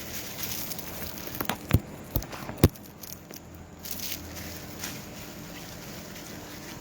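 A few sharp knocks or clicks close together about two seconds in, over a low steady background noise.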